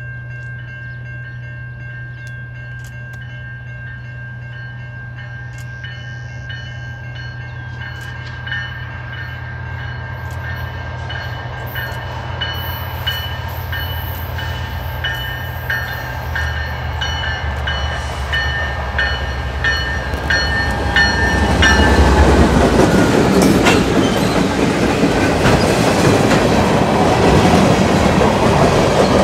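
A diesel freight train led by a GE C44-9W locomotive approaches with a low engine drone and steady high-pitched tones that grow louder and drop in pitch as the locomotives pass, about three quarters of the way in. After that the freight cars roll by close up, with loud, even wheel-on-rail noise.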